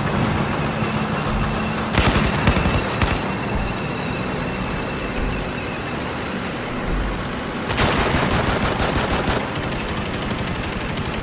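Rapid automatic gunfire: a dense burst of shots about two seconds in and another, longer burst about eight seconds in, with scattered shots between.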